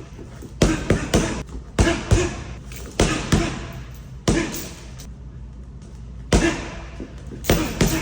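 Boxing punches landing hard, thrown in quick combinations of one to three strikes, each impact sharp and followed by a short ring.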